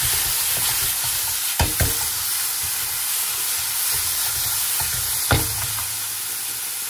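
Sliced onions, tomatoes and green chillies sizzling in oil in a frying pan as a silicone spatula stirs them, with a few sharp knocks of the spatula against the pan, loudest about a second and a half in and again past five seconds.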